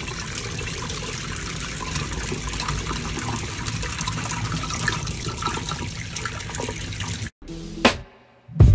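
Steady rushing water in an aquarium tank, cutting off suddenly about seven seconds in. After a short quieter stretch with a single sharp click, music starts right at the end.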